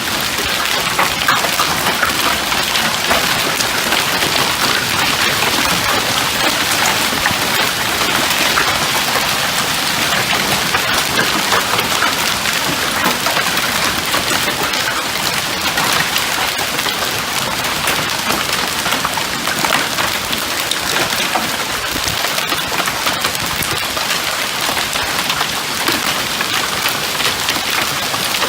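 Heavy rain pouring steadily: a dense hiss of drops pattering on a surface.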